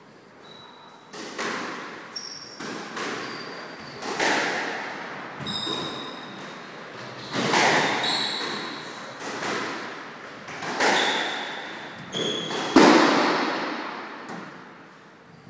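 A squash rally: the ball struck by rackets and hitting the court walls, about a dozen hits roughly a second apart, each one echoing in the enclosed court, the loudest near the end. Short high squeaks of shoes on the wooden floor come between the hits.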